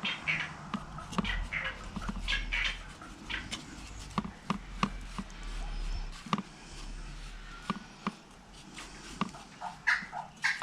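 Poultry clucking on and off in short calls, with scattered light clicks and taps.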